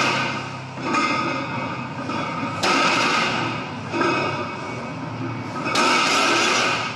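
Loud, dense background music that changes abruptly every second or two.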